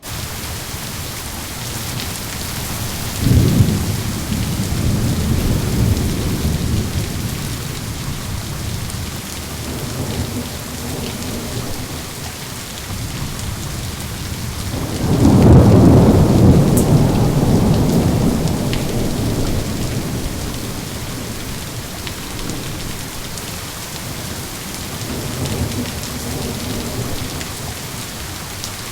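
Steady rain falling, with rolling thunder over it: a rumble breaks in suddenly about three seconds in, the loudest peal swells about halfway through and slowly dies away, and a fainter rumble comes near the end.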